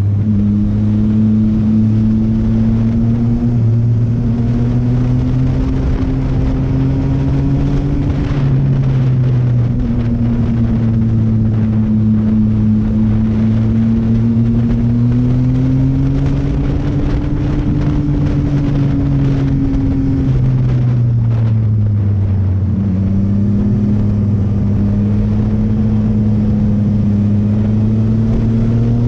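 Sport motorcycle engine running at a steady cruise, its pitch slowly rising and falling as it eases off and picks up again through the curves, with wind rushing over the microphone. The pitch climbs right at the end as the bike accelerates.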